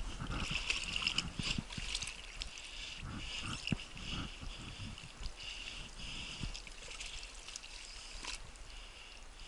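Water splashing and swishing with rustling vegetation as someone moves through a duckweed-covered swamp channel, with knocks and thuds over the first few seconds that then settle into a steadier, fading wash.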